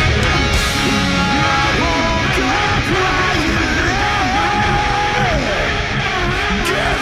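Hard rock music with electric guitar and vocals.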